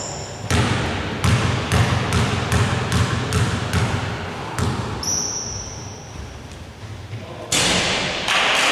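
A basketball bounced repeatedly on a hardwood gym floor, about ten sharp bounces over four seconds, as a free-throw shooter dribbles at the line. Near the end a louder rush of noise comes in as the shot goes up.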